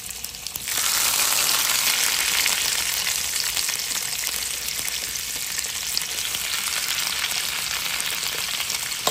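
Raw chicken pieces frying in hot olive oil in an electric skillet: a steady sizzle that jumps sharply louder about a second in as another piece goes into the oil, then holds, easing slightly.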